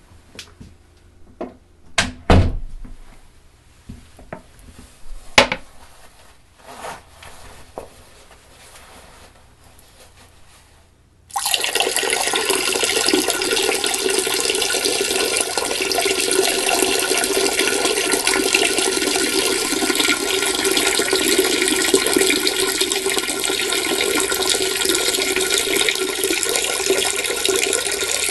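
A few scattered knocks and clicks, then about eleven seconds in a man's urine stream starts suddenly into a toilet and runs on steadily.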